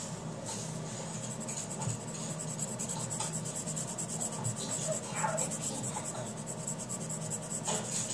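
Colored pencil scratching on paper in rapid back-and-forth strokes, many a second, as a drawing is colored in.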